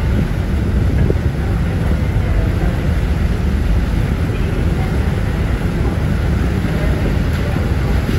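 Steady wind buffeting the microphone on the deck of a moving ferry, over the rush of churning water along the hull and a low rumble.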